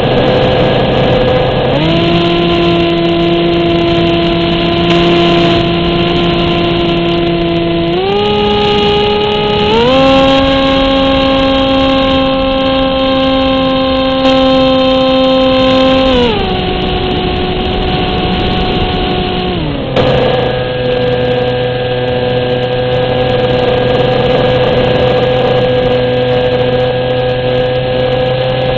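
Motor and propeller of an RC flying wing heard from on board, a steady whine over wind rush that steps up in pitch as the throttle is raised about 2, 8 and 10 seconds in, then steps back down around 16 and 20 seconds in.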